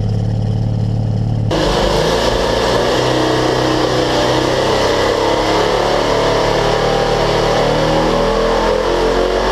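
R12 12-rotor Wankel rotary engine running on a carburettor in a low-power dyno test, held below about 2000 rpm by the carburettor's flow. For the first second and a half it is heard as a deep exhaust note at the exhaust outlet, then suddenly as a louder, brighter engine sound close to the engine, rising slightly in pitch near the end.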